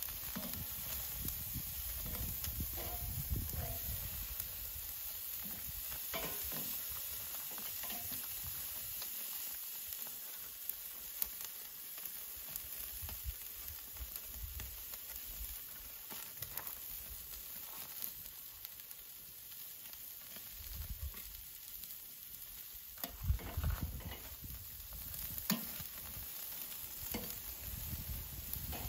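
Food sizzling as it cooks: a steady high hiss with scattered small clicks and pops. A few dull knocks come about three-quarters of the way through.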